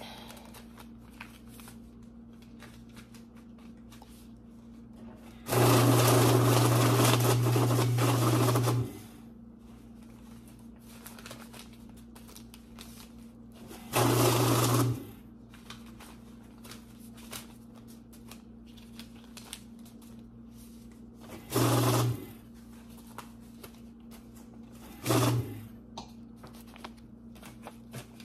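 Electric bill counter running in bursts as stacks of banknotes are fed through it: one run of about three seconds, then shorter runs of a second or less. Between runs, the faint rustle and crinkle of bills being straightened by hand.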